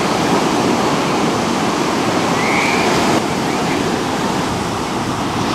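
Ocean surf breaking and washing up the beach: a steady rushing noise of waves.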